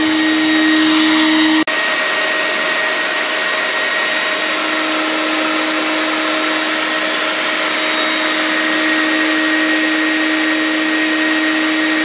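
Bee vacuum running steadily: a motor whine over a loud rush of air, with a brief click a little under two seconds in.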